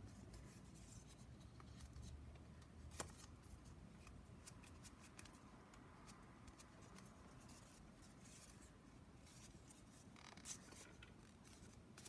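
Near silence with faint rubbing and light clicks of craft-foam pieces being handled and pushed onto a foam spine, with a sharper click about three seconds in and another about ten seconds in.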